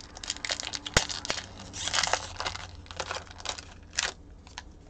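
Crinkling of a trading-card pack's shiny wrapper, handled and torn open in irregular crackles, with a sharp tap about a second in.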